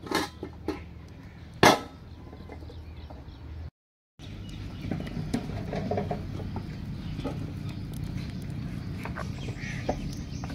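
A brick set down on a steel pot lid with one sharp clank, after a few lighter knocks. After a cut, a wood fire crackles steadily under the pot.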